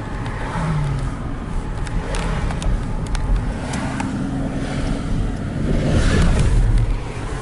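A car driving, heard from inside the cabin: steady road and engine noise with a few light clicks, getting louder for a moment near the end.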